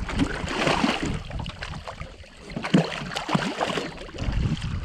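Water splashing and sloshing beside a small boat, with scattered knocks.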